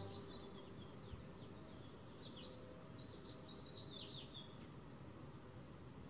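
House finches chirping faintly in short high notes, a few near the start and a busier run from about two to nearly five seconds in, over low steady background noise.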